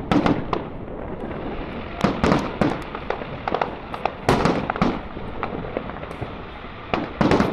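Fireworks display: shells bursting in quick clusters of sharp bangs with crackle, the loudest clusters about four seconds in and near the end.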